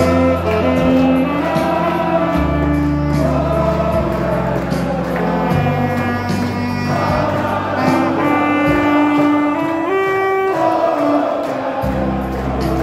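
Saxophone playing a melody of held notes over a recorded backing track with a steady bass line from a loudspeaker.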